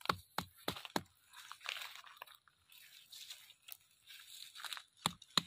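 Footsteps and movement crunching through dry grass and dead leaves: scattered sharp crackles, several in the first second and again near the end, with faint rustling between.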